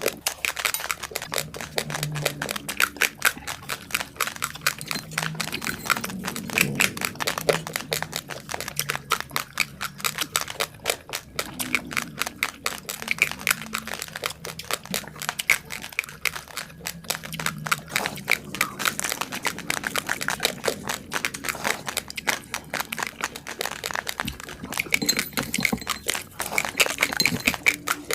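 Raw basmati rice grains being chewed close to the microphone: dense, rapid crunching, many crisp cracks a second, going on without a break.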